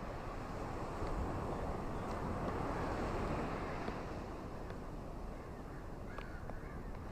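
Steady rain falling on leaves, a continuous hiss, with a few faint short bird chirps scattered through it.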